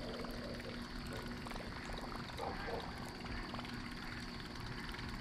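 Buzzbait being reeled across the water's surface, its blade churning with a faint, intermittent gurgle.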